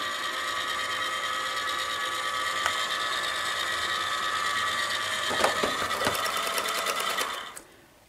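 Liectroux B6009 robot vacuum cleaner running with a steady motor whine as it drives itself back to its charging dock. Near the end comes a quick run of clicks, then the motors stop about seven and a half seconds in.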